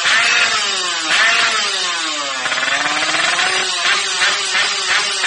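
Two-stroke underbone motorcycle engine revving through an ABRT20 racing exhaust. The revs start high, fall away over about two seconds, then climb again, with quick short throttle blips near the end.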